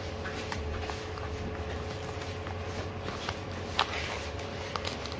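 Small retail box of a charging cable being handled and worked open by hand: faint rustling with a few small clicks of the packaging, the sharpest a little past the middle, over a steady low hum.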